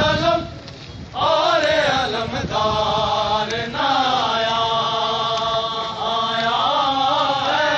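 Men's voices chanting a Muharram noha, a mourning lament, with long held notes. The chant breaks off for under a second near the start, then resumes.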